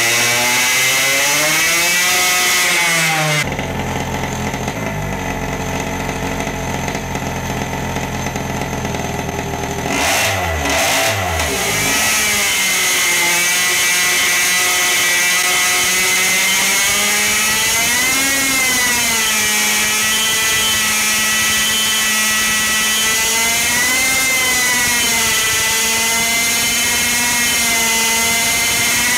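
Tuned two-stroke engine running hard under dyno brake load, its pitch wavering up and down as the rpm fluctuates. For several seconds about a third of the way in it drops to a lower, quieter, steady note, then climbs back to a high, wavering note near 13,000 to 15,000 rpm.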